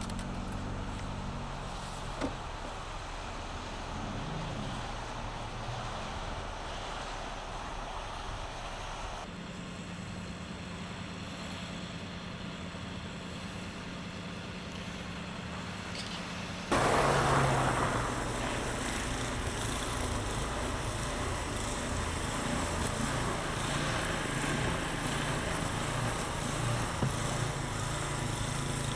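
Motor vehicle engine and road noise running steadily under a broad noise. The sound changes abruptly about nine seconds in, and again at about seventeen seconds, where it becomes louder.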